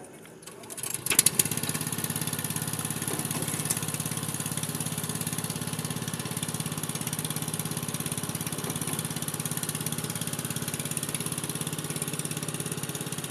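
Small engine of a portable fuel transfer pump starting about a second in, then running steadily as it pumps diesel through a hose into an excavator's tank.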